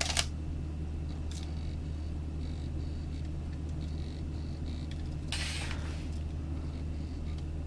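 Steady low hum with quiet camera handling: a click at the start, a brief rustle about five seconds in, and faint short high whines on and off from the Samyang AF 35mm f/2.8 lens's autofocus motor as it focuses.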